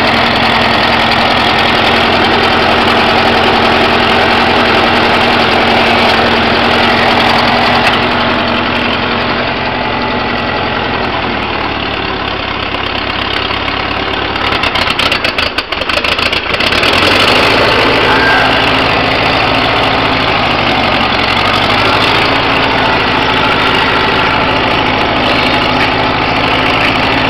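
A 1956 Farmall Cub's four-cylinder flathead engine running steadily as the tractor is driven off. About halfway through, its sound dips for a moment, then comes back at a slightly different pitch.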